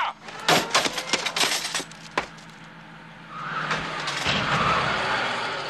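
A quick run of sharp clicks and clatters, then a box truck driving past on the road, its running noise building about halfway through with a low rumble.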